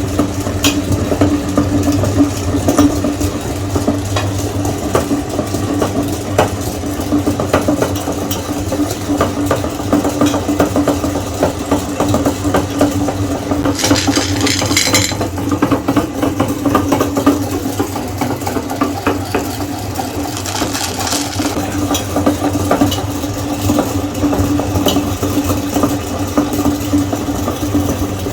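Meat grinder running steadily and crunching through M&M candies, with a constant motor hum and a dense stream of small cracks and clicks as the hard candy shells break.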